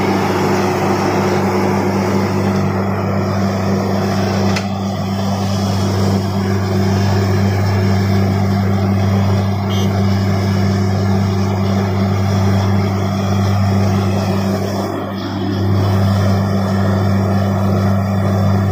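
Truck-mounted borewell drilling rig running steadily: a loud engine drone with a low hum, under a broad hiss of compressed air blowing water and slurry up out of the borehole, the sign that the bore has struck water. The sound dips briefly about 15 seconds in.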